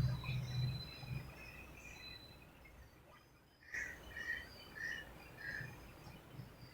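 Faint bird chirps over low room noise: thin high whistled notes, then four short calls about half a second apart.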